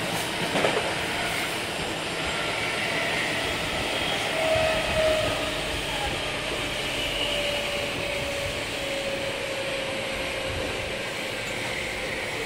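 Onboard running sound of a Meitetsu 5000 series electric train, whose running gear is reused from the 1000 series: a steady rumble of wheels on rail under a motor whine that falls slightly in pitch as the train slows. A single sharp knock comes about a second in.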